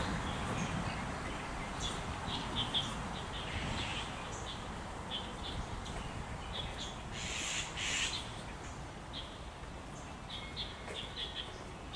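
Wild birds calling in a wetland: clusters of short, high chirps throughout, with one harsher, noisier call lasting about a second around the middle, over a steady low background rumble.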